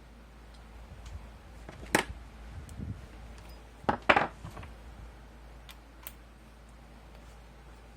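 Hand tools and the drill's plastic housing being handled: a sharp click about two seconds in, a double knock around four seconds, and a lighter tick near six seconds.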